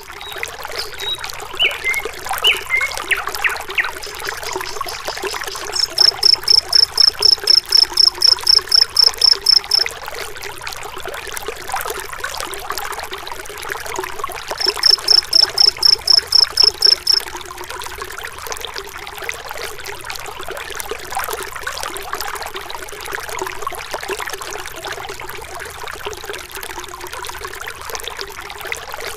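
Waterfall water splashing and rushing steadily. Over it, a high-pitched call pulses about four times a second in two runs, the first about six seconds in lasting some four seconds and a shorter one in the middle. A few short falling chirps come in the first few seconds.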